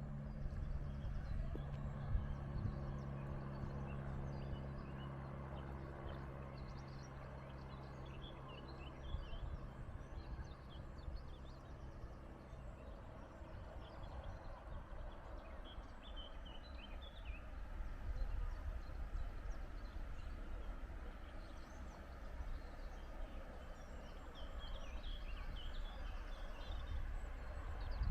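Open-air ambience of low wind rumble with small birds chirping in short bursts now and then. A low steady hum fades away about halfway through.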